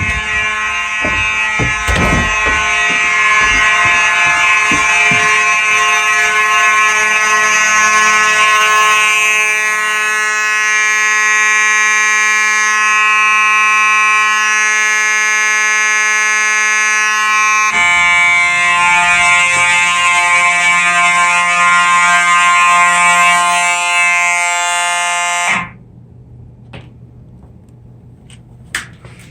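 Simplex 4903-series mechanical fire alarm horns sounding together in a loud, continuous blare. The tone changes character about 18 seconds in, and then the horns cut off suddenly a few seconds before the end.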